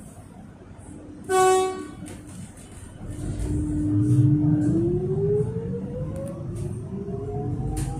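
Melbourne Metro electric suburban train sounding one short horn toot about a second in, then pulling away: a steady motor whine rises in pitch from about halfway through as the train gathers speed, over a growing low rumble.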